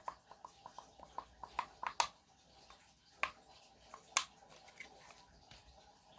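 Slime being squeezed and pressed in the hands, making a quick run of small wet clicks, about four a second and growing louder, then two louder pops about three and four seconds in.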